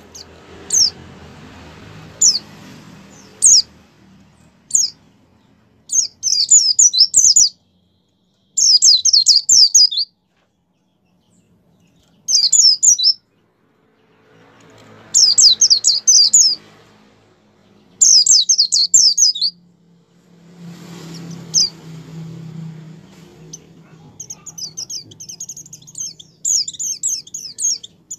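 White-eye (pleci) singing: a few single high chirps at first, then rapid twittering phrases of one to two seconds with pauses between them, running into a near-continuous fast twitter near the end.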